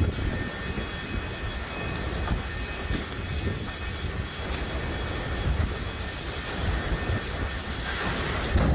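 Buildings burning in a large wildfire: a steady, deep roaring rumble. Explosions pop now and then in the background, with a louder surge near the end. Faint steady high tones sit above the roar.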